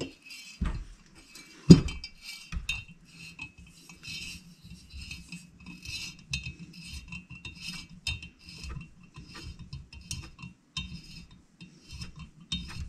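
Thread-chasing tap in a T-handle tap wrench, turned by hand in the exhaust-stud hole of a Predator 420cc cylinder head to clean up the threads: a run of small metallic clicks and scrapes. Two louder knocks near the start.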